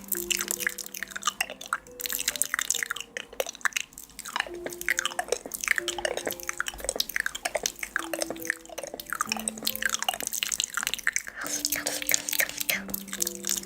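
Dense wet clicks and drips with a soft melody of slow held notes underneath.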